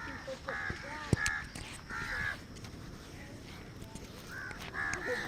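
Short animal calls repeated about once a second, with a sharp click a little over a second in.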